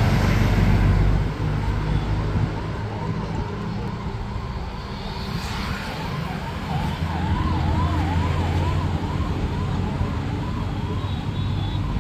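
Electronic siren sounding a fast repeating yelp, about two to three sweeps a second, over a steady low rumble of vehicle and traffic noise.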